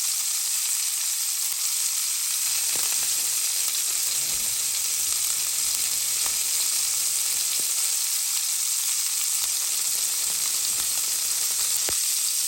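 Filet mignon steaks searing in olive oil in a hot cast-iron skillet: a steady sizzle with a few faint pops.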